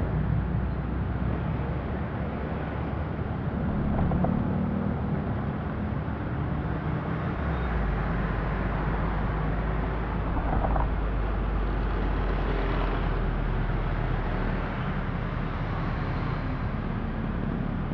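Steady road and engine noise of a car driving in busy traffic: a continuous low rumble with a faint engine hum.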